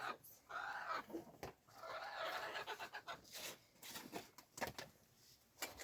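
Chickens calling faintly, with a few sharp clicks or knocks in between.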